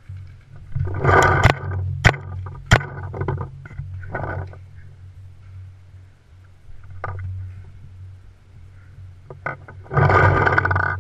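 Paintball marker firing a few single sharp shots, two loudest about two and two-and-a-half seconds in, over a steady low wind rumble and bursts of rustling and buffeting on the gun-mounted microphone.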